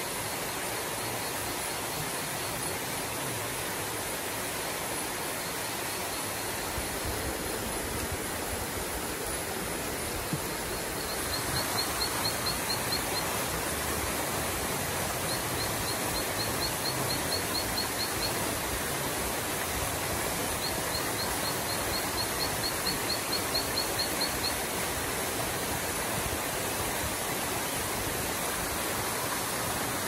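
Night forest ambience: a steady hiss, with repeated trains of rapid high chirps, about five a second, each train lasting two to four seconds. The chirps are faint at first and grow clearer about a third of the way in.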